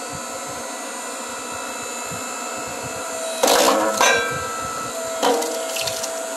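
An 8-ton electric hydraulic log splitter's motor and pump humming steadily while the ram pushes a log onto a four-way wedge. There is a loud crunch and crack of wood about three and a half seconds in, and another crack about five seconds in.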